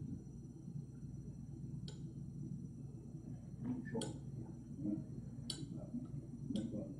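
Four short, sharp taps spread across a few seconds, over a steady low room hum.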